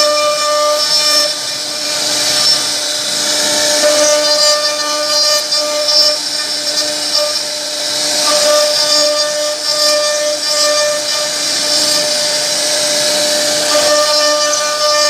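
CNC router spindle running and its bit carving a wooden board: a steady whine that swells and fades every few seconds over a hiss of cutting.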